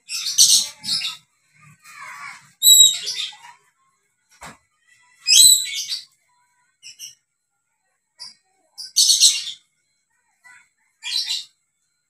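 Dusky lory screeching: about five loud, harsh, high shrieks spaced a couple of seconds apart, with a few short chirps in between.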